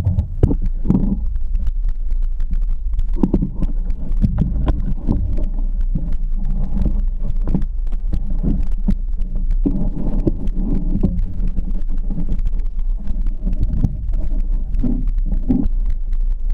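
Muffled low rumble with frequent irregular knocks and thumps, heard through a GoPro camera housing on a quadcopter that is tumbling and bumping near the ground.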